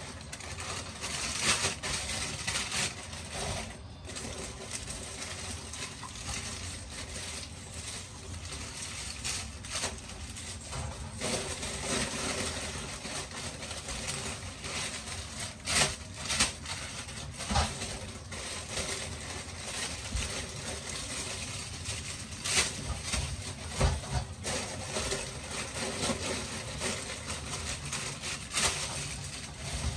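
Kitchen tap running steadily into a stainless steel sink while plastic-wrapped salad bags are rinsed under it, with crinkling plastic and scattered sharp knocks and clatters against the sink.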